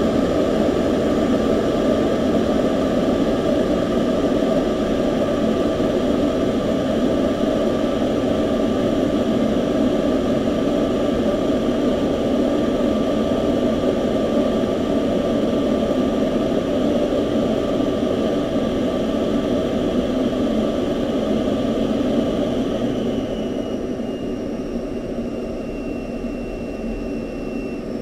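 U-2's jet engine and airflow noise heard inside the cockpit during the takeoff run and initial climb: a steady, loud rush with a constant high whine. About twenty-three seconds in, the sound eases off a little and a high tone drops slightly in pitch.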